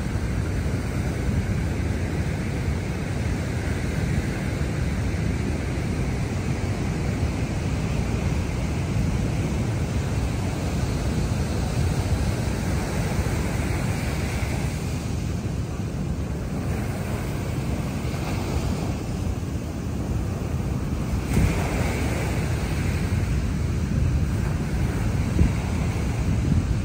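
Waves washing onto a sandy beach, with wind rumbling on the microphone under the steady hiss of the surf.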